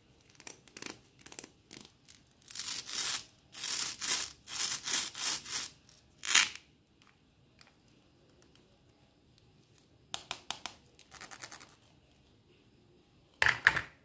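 Velcro pads on a plastic toy corn cob rasping as the two halves are rubbed and pulled apart: a series of scratchy strokes, quicker ones a few seconds later, and the loudest short scratchy burst near the end.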